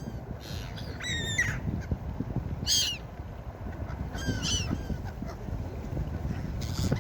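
Seagulls calling in short, harsh cries in about four bouts, the loudest about three seconds in, over a steady low rumbling background.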